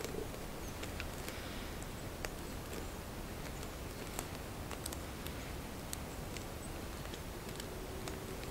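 Dry sinew fibres being handled and picked at by hand on a sinew-wrapped bow piece: scattered small, irregular clicks and crackles over a steady hiss.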